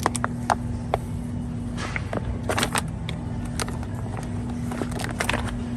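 Warehouse store ambience: a steady hum and low rumble, broken by scattered clicks and short clattering rattles.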